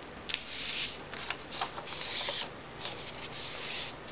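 Folded paper airplane being opened out and handled: the paper rustles and crinkles in several short scratchy bursts, with a few light clicks.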